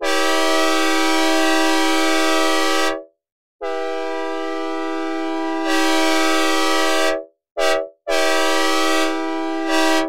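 Synthesized recreation of a K5L five-chime locomotive air horn, dry with no reverb, sounding a steady multi-note chord in four blasts: two long, one short, one long, the grade-crossing signal pattern. The second blast gets louder about two seconds in, and each blast cuts off cleanly.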